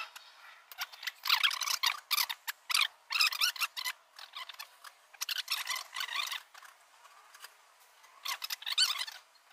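Small hand frame saw cutting a thin wooden stick held in a clamp: quick rasping strokes in three runs with short pauses between them.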